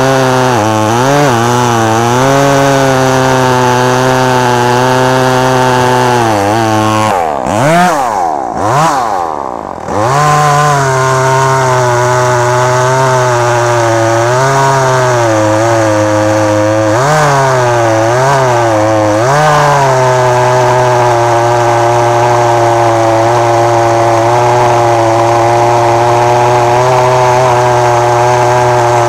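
Two-stroke chainsaw engine running at high revs. It drops to idle about seven seconds in and revs back up about three seconds later, with a few brief dips in speed.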